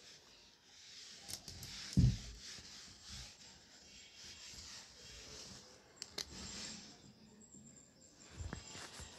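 A cloth duster rubbing and wiping across a whiteboard, with a dull thump about two seconds in and a few sharp clicks about six seconds in.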